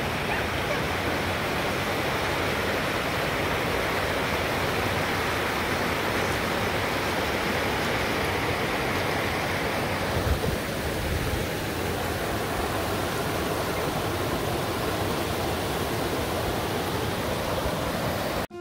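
Fast mountain creek rushing over rocks and small cascades: a steady, even rush of water.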